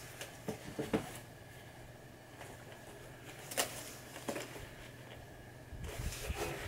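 Faint handling sounds of a sneaker and its hang tag being turned over in the hands: a few light clicks and taps, the sharpest about halfway through, and a brief rustle near the end, over a low steady room hum.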